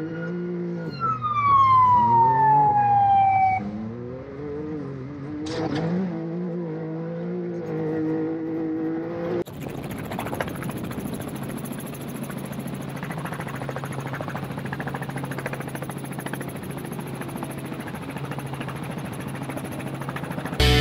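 Can-Am Maverick X3's turbocharged three-cylinder engine revving up and down as it is driven hard, heard from inside the cab, with a whine gliding down in pitch about a second in and a sharp knock about five seconds in. About halfway through it cuts to a steady rushing noise with a low hum.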